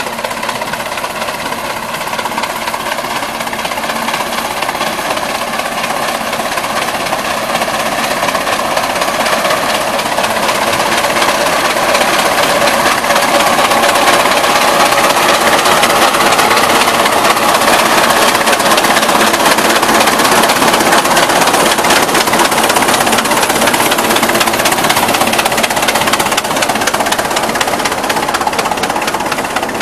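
Large vintage Aultman Taylor gas tractor engine running hard under load as it pulls a plow, with a fast, even exhaust beat. It grows louder over the first half and then holds steady.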